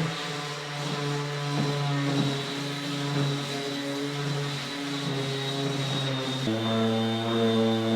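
Electric power sander running steadily on wood, a motor hum with a thin high whine; the pitch steps to a different level about six and a half seconds in.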